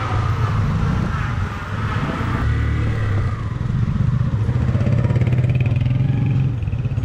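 Motorcycle engine running steadily while the bike is ridden, a low drone with road and wind noise over it.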